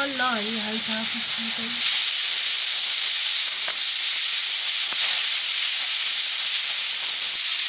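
A loud, steady hiss that starts suddenly about two seconds in.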